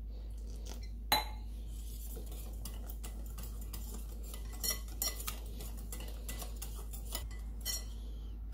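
Wire whisk stirring thick chickpea-flour batter in a glass bowl, its wires clicking and tapping against the glass in irregular bursts, with one sharper clink about a second in.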